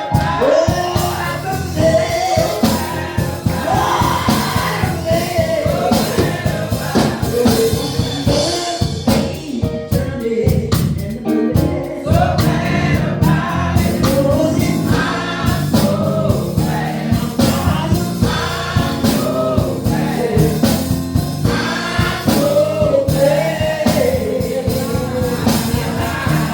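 Church choir singing a gospel song with band accompaniment and a steady beat.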